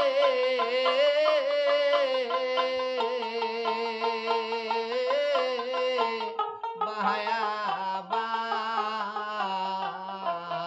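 A man singing a Bengali folk song, holding long, wavering notes, to a plucked dotara. The voice breaks off briefly about six seconds in, then the singing goes on.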